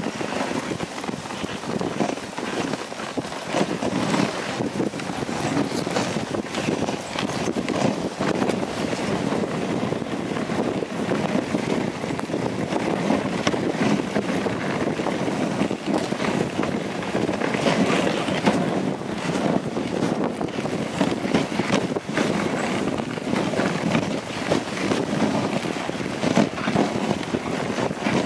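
Dog sled gliding along a snowy trail: a steady rushing hiss of the runners on packed snow, with many small knocks and rattles from the sled.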